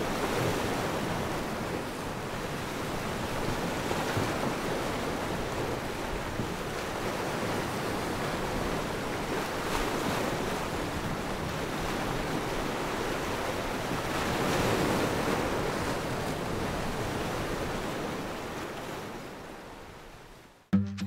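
Ocean surf washing in: a steady rushing with slow swells as waves break, fading down near the end.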